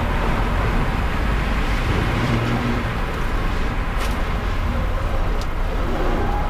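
Onboard sound of an electric car lapping at speed: a steady rush of tyre and wind noise over a low rumble, with two sharp clicks about four and five and a half seconds in.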